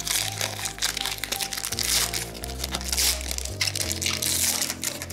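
A foil trading-card pack wrapper crinkling in the hands as it is opened, with background music carrying a steady bass line.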